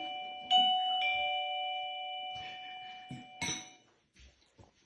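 Doorbell chime sounding a two-note ding-dong about half a second in, both notes ringing on for about three seconds. A short knock near the end.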